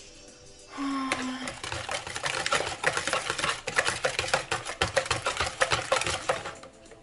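A hand whisk beating a runny egg, sugar and melted butter mixture in a bowl: a fast, uneven run of clicks and taps of the whisk against the bowl. It starts about a second in and stops shortly before the end.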